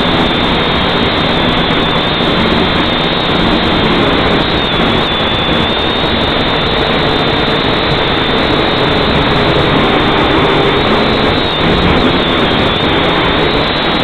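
Syma X5C-1 quadcopter's small motors and propellers whirring through its onboard camera's microphone, the pitch drifting slightly up and down, mixed with strong wind rumbling on the microphone.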